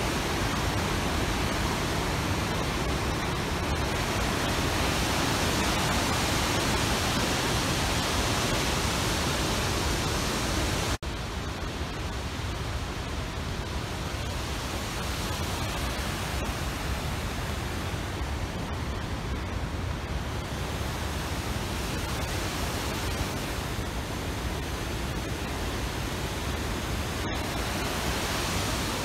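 Steady rushing of flowing water, like a mountain stream or waterfall. It breaks off for an instant about eleven seconds in and comes back a little quieter.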